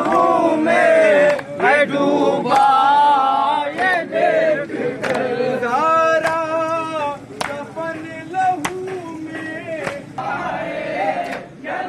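A group of men chanting a nauha, a Shia lament for Muharram and Safar, in unison with a lead voice. Sharp chest-beating (matam) slaps fall in time with it, roughly once a second.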